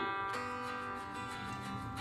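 Soft background music with plucked-string, guitar-like notes.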